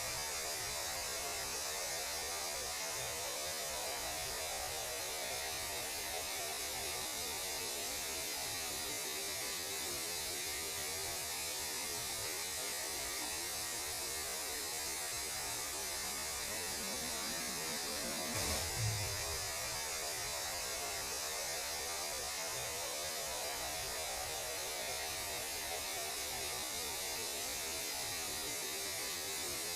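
Steady electronic static: an even hiss with an underlying hum, the kind of radio-noise recording presented as the sound of space. A short low rumble swells up about two-thirds of the way through.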